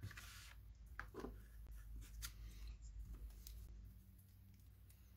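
Faint rustling and a few light taps of paper and card being handled on a craft table, over a low steady hum.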